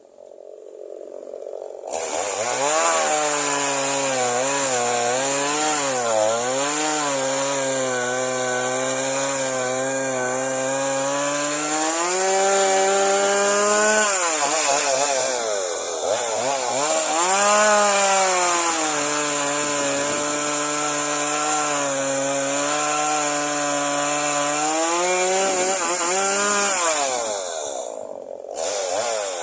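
Stihl two-stroke chainsaw running, starting up about two seconds in. Its pitch wavers and rises twice as the engine is revved up, then falls back. Near the end it drops away briefly.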